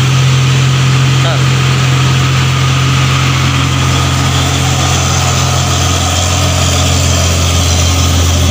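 Heavy diesel dump truck engines pulling slowly up a steep grade under load: a loud, steady low drone whose pitch drops a little about six seconds in, as a loaded dump truck comes close past.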